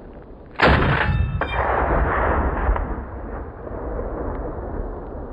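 A single shot from a custom .308 Saiga semi-automatic rifle about half a second in, with a metallic ring, a second sharp crack about a second later, and a long rolling echo.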